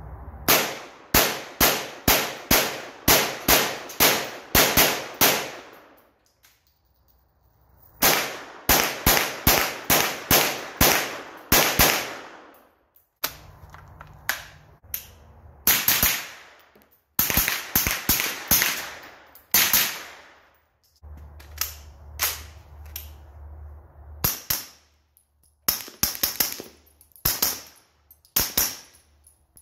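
CZ Scorpion Evo 3 S1 9mm carbine fired in quick semi-automatic strings, about three shots a second, each shot with a short echoing tail, with pauses between strings. The later strings, fired suppressed with subsonic ammunition, are quieter.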